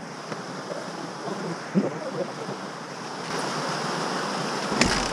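Wind noise on the microphone, a steady rushing that swells about three seconds in. A single sharp knock comes near the end as the motorcycle is handled.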